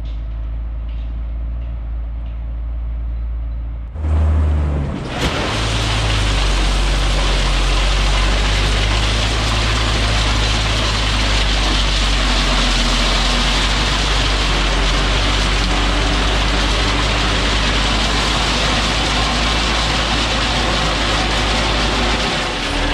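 For the first four seconds a distant engine rumbles low. Then a dump truck's engine runs as the truck creeps along, with crushed rock spilling from the raised bed over the tailgate onto the driveway in a steady rushing rattle.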